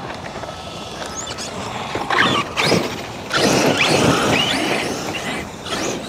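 Large ARRMA 8S electric RC basher truck driven hard on loose dirt in throttle bursts: the motor's whine rises and falls in pitch, over the rush of tyres throwing up dirt, loudest from about two seconds in.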